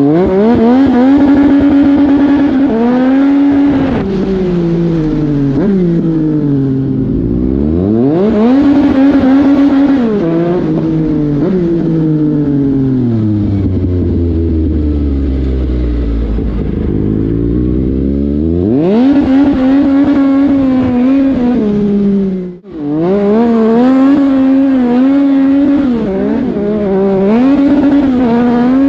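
A 2021 Yamaha MT-09's three-cylinder engine, heard through its exhaust as the bike is ridden. It accelerates and rolls off again and again, its pitch climbing and dropping with the gear changes, slowing down to a low note about halfway through before pulling away again. The sound cuts out briefly about three-quarters through.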